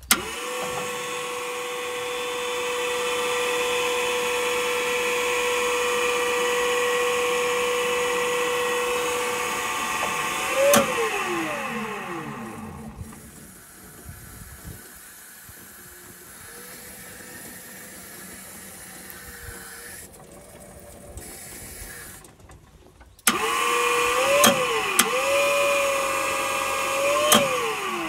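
TCM FTB 13 P battery-electric forklift's electric motor whining at a steady high pitch. It winds down with a click about eleven seconds in and runs faint for a stretch, then cuts in again abruptly a little after 23 seconds, with several clicks and brief rises in pitch, before winding down near the end.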